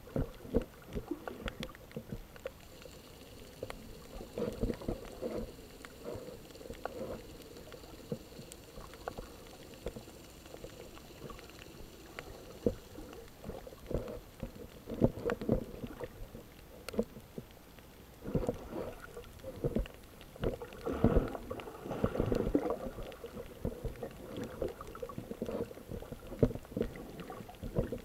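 Muffled water sloshing as heard by an underwater camera, with irregular knocks and clicks that come thicker in two stretches, around a quarter of the way in and again past the middle.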